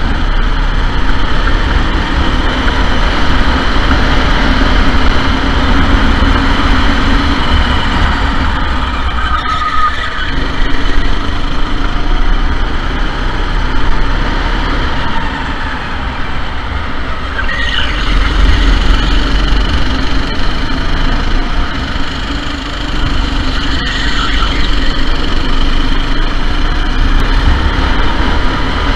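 Sodi SR4 four-stroke rental go-kart engine running hard at racing speed, loud and continuous under a heavy low rumble, with brief dips in loudness around the middle and about three quarters of the way through.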